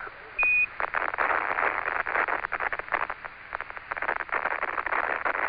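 NASA air-to-ground radio loop: a short high beep about half a second in (a Quindar tone marking the end of a Capcom transmission), then crackling radio static and hiss thick with fine clicks on the open channel.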